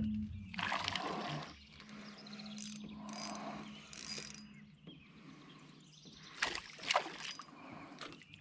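Water splashing and sloshing as a hooked fish is reeled in close beside a small aluminium boat. A faint steady hum runs for a couple of seconds in the middle, and two sharp knocks come near the end.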